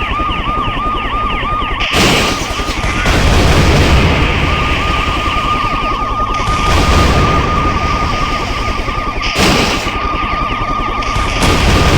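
Helicopter rotor and engine rumble under a fast, repeating warbling alarm tone, with about five loud bursts like gunfire or explosions breaking through.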